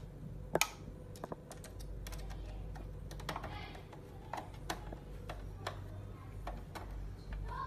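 Irregular sharp clicks and taps of a small screwdriver and screw against a car-radio head unit's metal case and a plastic dash frame as the unit is screwed into the frame, the loudest pair of clicks about half a second in.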